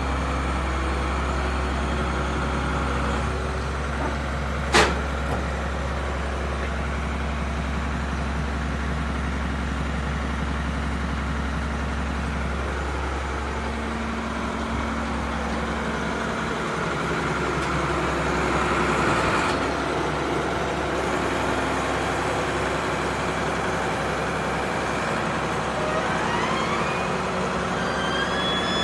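Akerman H7MC wheeled excavator's diesel engine running steadily while the hydraulics work the boom, scrap grab and slew. A single sharp knock comes about five seconds in, and the engine drone shifts in tone about halfway through as the machine works.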